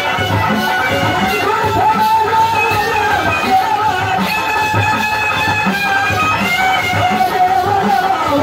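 Folk dance music: a steady drum beat, two to three thumps a second, under a sustained, wavering melody line.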